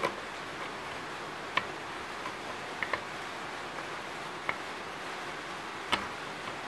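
Plastic oil filler cap being unscrewed by hand from a leaf blower's plastic oil tank: a few sharp, scattered clicks over a steady hiss.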